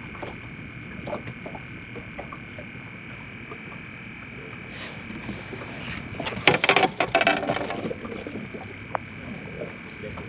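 A steady chorus of frogs calling. About six and a half seconds in, a brief loud burst of splashing and clatter comes as a crappie is netted at the boat.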